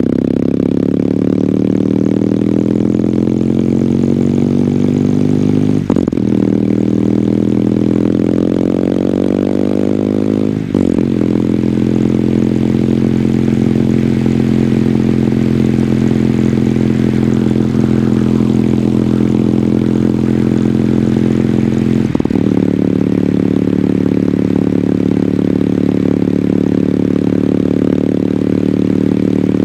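Kawasaki W800's air-cooled parallel-twin engine through its stock exhaust, under way: it pulls up through the gears with two upshifts about six and eleven seconds in. It then runs at a steady cruise, with one more gear change about two-thirds of the way through.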